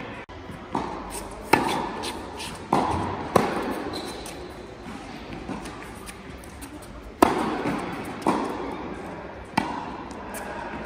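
Tennis rally: rackets striking the ball and the ball bouncing on a hard court, a string of sharp knocks each followed by a ringing echo off the large indoor hall, with a quieter lull in the middle.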